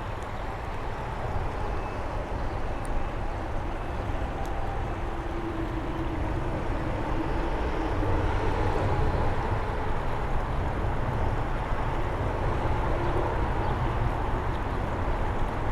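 Steady rushing of creek water, with a deep rumble beneath, a little louder from about halfway on.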